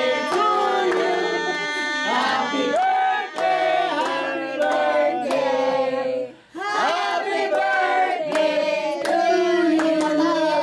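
A group of adults and children singing a birthday song together, clapping along, with a brief pause about six and a half seconds in.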